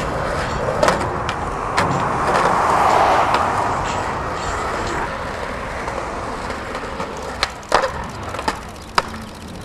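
Skateboard wheels rolling on concrete, then several sharp clacks of the board near the end as it pops onto and grinds a concrete ledge.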